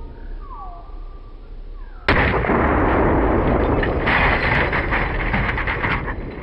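A 12-gauge Mossberg 500 pump shotgun firing a slug into a printer: one sudden loud report about two seconds in, followed by about four seconds of loud noise that fades near the end.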